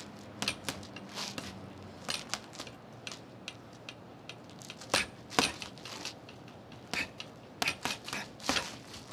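A string of irregular sharp smacks and clicks, several a second at times, the loudest about five seconds in and again near the end.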